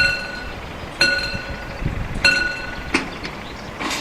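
A bell struck about once a second, each strike ringing briefly on the same few pitches, with two sharp clicks near the end.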